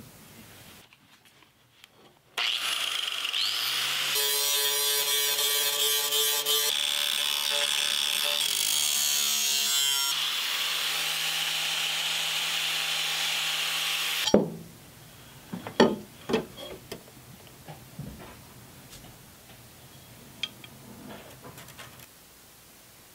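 A power cutting tool runs for about twelve seconds with a steady motor pitch and a strong hiss, trimming the sheet-metal inner fender. Its pitch shifts a few times as it bites, then it stops suddenly. A few sharp knocks and clicks of metal being handled follow.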